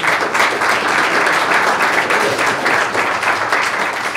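An audience applauding: dense, steady clapping from a roomful of people.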